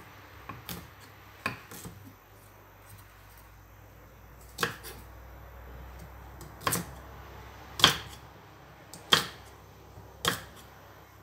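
Kitchen knife chopping green vegetable stalks on a thick wooden chopping board: single sharp knocks of the blade on the wood, about seven of them at uneven intervals of one to two seconds.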